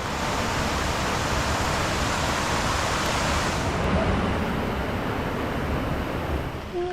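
Steady rush of falling water from a waterfall, a dense even noise with a deep low rumble; the higher hiss softens about four seconds in.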